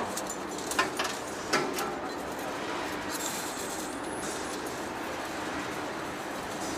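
Heavy-duty face lathe running with a steady mechanical hum, with a few sharp metallic clanks in the first two seconds and a brief hiss about three seconds in.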